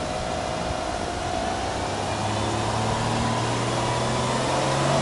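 Exhaust note of a Subaru Impreza hatchback 1.5i-S's 1.5-litre flat-four (boxer) engine, running with its engine speed rising slowly and its sound growing a little louder.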